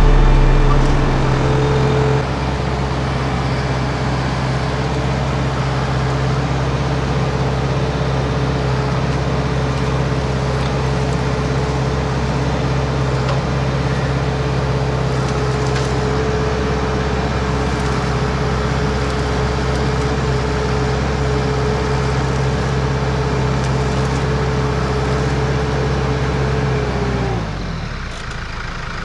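Case IH Farmall 75C tractor's four-cylinder diesel engine running steadily at working revs, then winding down toward idle about 27 seconds in.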